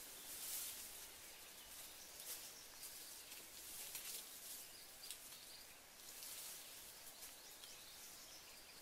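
Faint, scattered crackling and rustling of dry leaf litter being stirred as someone digs and moves through the undergrowth, over a quiet outdoor background hiss.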